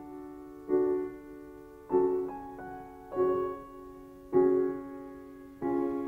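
Background music: slow, soft piano chords, one struck about every second and a bit and left to fade before the next.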